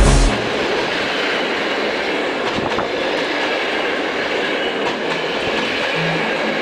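Passenger train coaches passing close by at speed: a steady rush of wheels on the rails, with occasional clicks.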